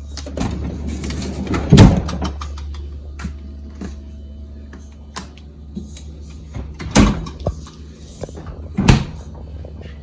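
Three solid thuds of a door or cupboard being shut, the first about two seconds in and the other two near the end, over a steady low hum.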